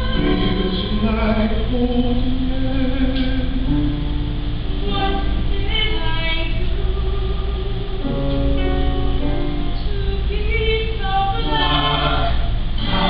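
A mixed group of male and female voices singing a slow song in harmony, with long held notes.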